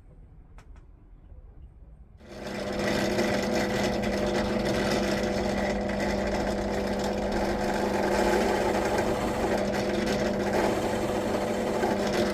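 An electric workshop machine switches on about two seconds in and runs steadily, its motor hum carrying a constant pitch over a broad whirring hiss.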